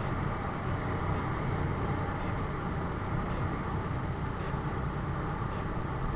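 Steady riding noise from a motorcycle on a wet road: the engine running at an even cruise, with road and wind noise.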